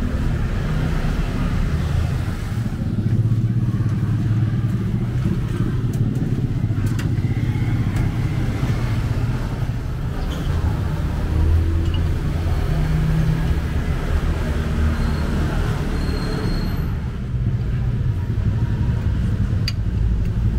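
Truck engine running, a steady low rumble.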